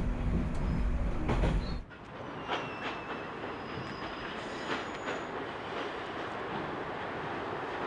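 Echizen Railway local train running on the rails, a low rumble and hum with wheel clicks, cutting off abruptly about two seconds in to a quieter steady hiss with a few faint clicks.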